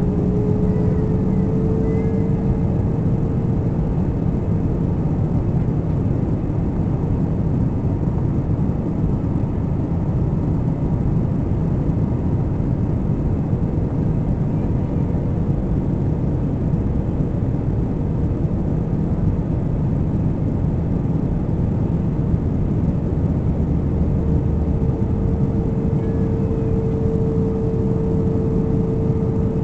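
Airliner cabin noise in flight: the steady rushing drone of engines and airflow. A steady hum fades out a few seconds in and comes back about three-quarters of the way through.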